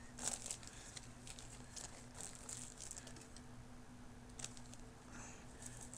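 Faint rustling and light clicks as a small plastic model airliner and its packaging are handled, with a steady low hum underneath.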